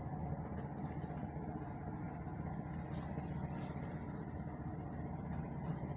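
An engine running steadily at constant speed: an even, low rumbling hum with no change in pitch or level.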